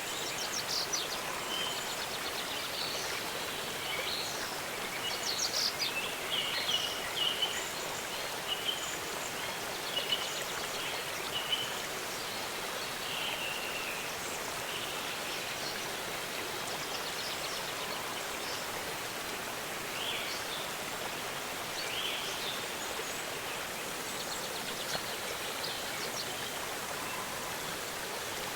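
Waterfall rushing steadily, with songbirds chirping and trilling over it, most busily in the first dozen seconds and again briefly around twenty seconds in.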